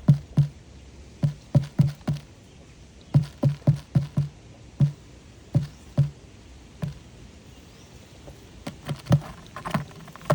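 Light hollow knocks on a box pigeon trap, irregular and often in quick runs of two to four, with a denser scuffling flurry near the end.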